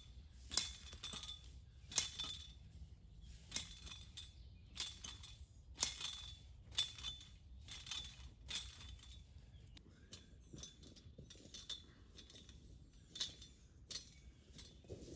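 Hand tiller's metal tines striking and scraping into soil, a string of sharp metallic clinks about once or twice a second, many with a brief ringing note.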